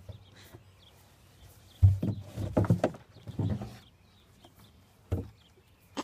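A Hereford steer knocking a tub about with its head against a fence: a burst of knocks and thumps about two seconds in, then one more knock near the end.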